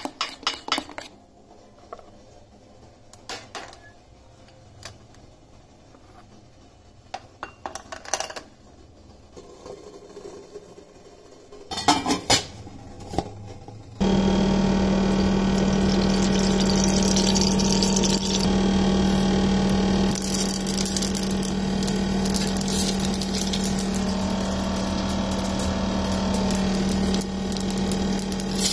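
Scattered light clinks and taps of steel kitchenware for the first half. Then, from a cut about halfway through, a loud steady hiss with a low hum underneath, as hot oil with mustard seeds and dried red chillies sizzles for a tempering.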